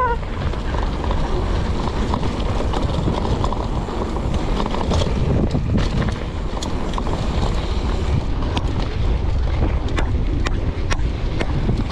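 Wind buffeting the camera microphone over the rumble of a Specialized Stumpjumper Evo mountain bike's tyres rolling fast on a dirt trail, with scattered sharp clicks in the second half as the bike runs over bumps.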